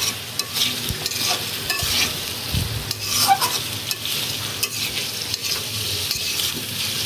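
Fried baby potatoes sizzling in a thick spice masala in a metal karahi while a spatula stirs them, with irregular scrapes against the pan. It is the koshano stage, the potatoes being stir-fried in the spice paste.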